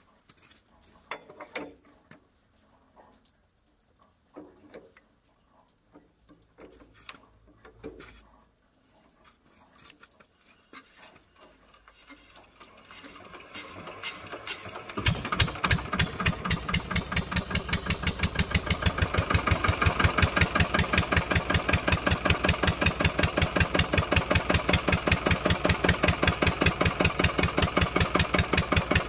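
Lister LD1 single-cylinder diesel being hand-cranked from cold. After a few faint clicks, the cranking builds up over a few seconds until the engine catches about halfway through. It then runs with a steady, even beat while driving its generator.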